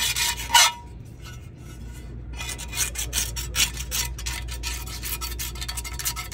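Razor blade scraping old gasket material off the metal flange of an EZGO TXT electric rear-end oil pan, in short quick strokes. A louder scrape comes about half a second in, then a short lull, then a steady run of rapid strokes from about two seconds in.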